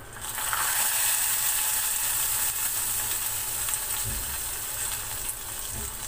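Hot ghee tadka of garlic, dried red chillies and curry leaves poured from a small steel ladle into cooked toor dal, sizzling loudly the instant it hits and then slowly dying down. There is a soft knock of the ladle against the pot about four seconds in.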